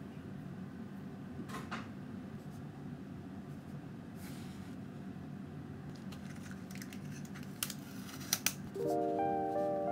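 Thin clear plastic dome lid crackling and clicking as it is pried off a small cake's paper cup, a few sharp crinkles in the last few seconds over a low steady room hum. Gentle music comes in near the end.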